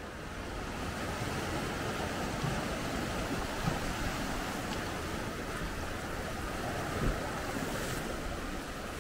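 Small waves washing over a flat coastal rock shelf and breaking against low rocks, a steady rushing wash of surf with a couple of brief thumps. Light wind catches the microphone.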